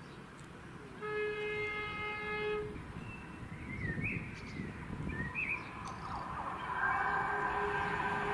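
A train horn sounds one steady note for nearly two seconds, birds chirp, and then an approaching train's running sound grows steadily louder near the end.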